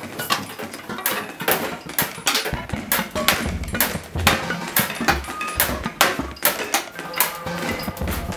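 Thin steel sheet being bent and lifted by gloved hands, giving a run of irregular sharp metallic pops and crackles, with a low rumble from about two and a half seconds in.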